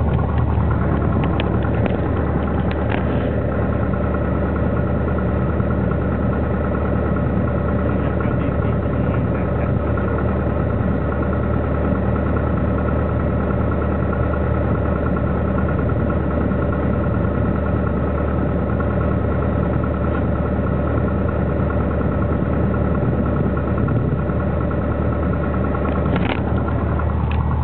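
Single-engine Piper Cherokee's piston engine and propeller running steadily, heard from inside the cockpit. A few light clicks sound in the first few seconds and again near the end.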